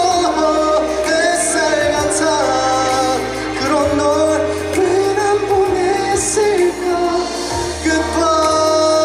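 Live pop ballad through a concert sound system: a singer's voice over a backing band with steady low bass notes and held chords.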